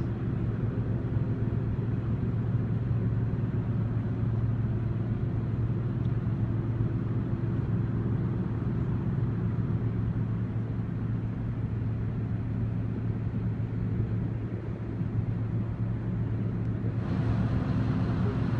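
Steady low engine hum over a faint haze of noise. About seventeen seconds in, a brighter hiss joins it.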